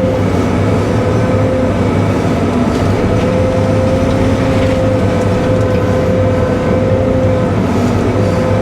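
Cat 313 hydraulic excavator running steadily under working load, its engine hum carrying a steady high whine.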